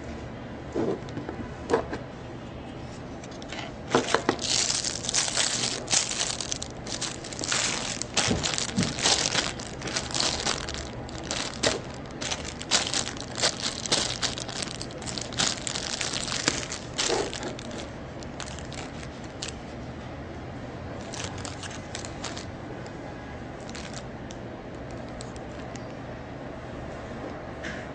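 Crinkling and rustling as a coiled phone accessory cable and its packaging are handled: a dense run of sharp crackles from about four seconds in until about seventeen seconds, then only a few scattered faint rustles.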